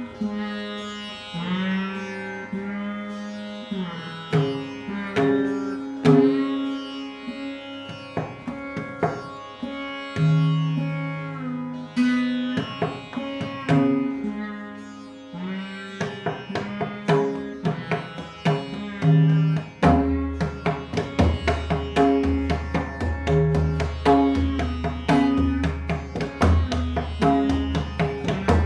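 Rudra veena playing a Dhrupad raga: slow plucked notes with long slides in pitch. About two-thirds of the way through, the plucking grows quicker and denser, over a deep low pulsing tone.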